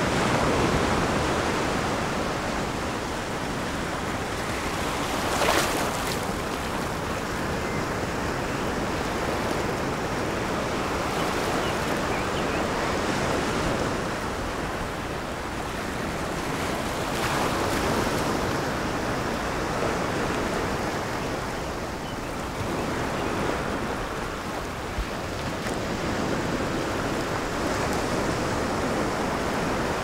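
Ocean surf: small waves breaking and washing in, a steady rushing wash that swells and eases every several seconds, with a brief sharper splash about five seconds in.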